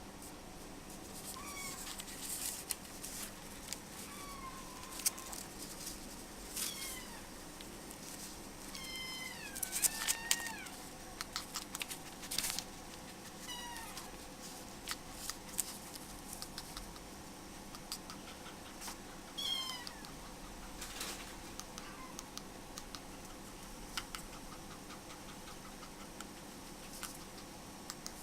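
A kitten mewing: several short, high-pitched calls that bend in pitch, spaced a few seconds apart, with scattered light clicks and taps.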